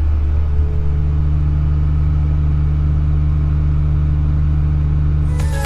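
Combine harvester running steadily while harvesting corn: a constant low engine drone with a steady hum.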